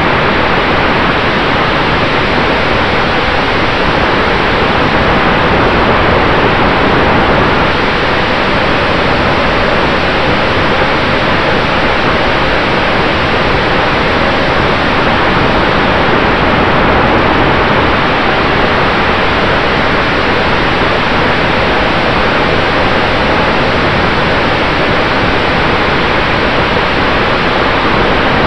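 Loud, steady rush of wind and propeller noise from a camera riding on an electric RC model warbird in flight, an E-Flite F4U Corsair 1.2 with a brushless motor, with a faint steady tone underneath.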